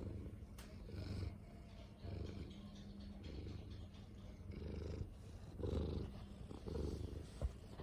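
A domestic cat purring, a low buzz that swells and eases roughly once a second.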